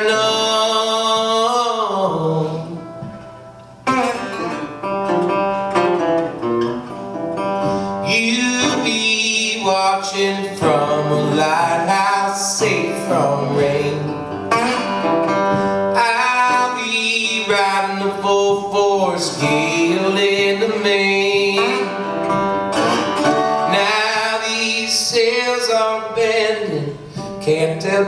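A man singing a folk song and accompanying himself on a resonator guitar, with a short lull about three seconds in before the guitar comes back strongly.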